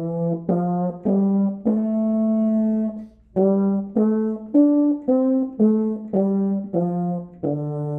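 Euphonium playing a slow phrase of about a dozen separate notes, with a short break about three seconds in and a long held note at the end. The tone is deliberately pinched, the result of the lips being too close together and pinching or smiling too much.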